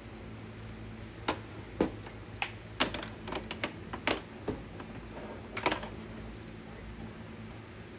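Irregular light clicks and taps, about ten over the first six seconds, from tools and small parts being handled, over a steady low hum.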